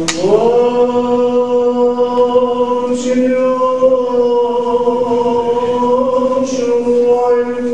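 Liturgical chant: a voice sings long, drawn-out notes that glide up at the start and then hold almost steady, bending slightly, with short breaks about three seconds in and again near the end.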